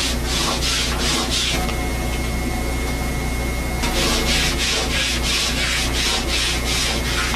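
Quick scratchy strokes of an artist's hand tool across rough watercolour paper, about three a second, pausing for a couple of seconds midway, over a steady low hum.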